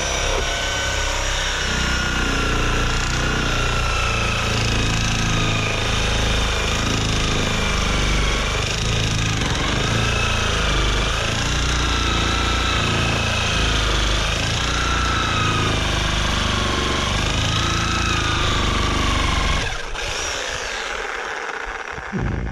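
Chicago Electric reciprocating saw running under load, its blade cutting through a nailed wooden pallet board. The motor whine dips and rises in pitch as the blade bites, and the saw stops about twenty seconds in.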